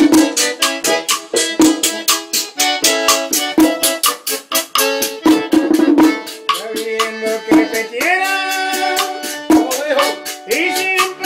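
Live merengue típico band playing: a steady, fast scrape of a metal güira and the beat of a tambora drum under a sustained accordion melody. A voice begins singing about eight seconds in.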